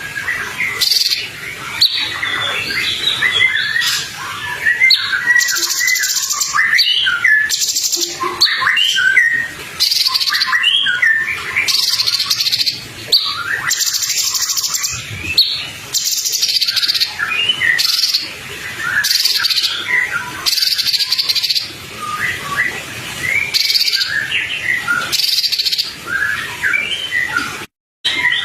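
Songbird master recording: dense, fast chirping and short whistled notes from songbirds, with short high buzzy bursts every second or two. The sound cuts out for a moment near the end.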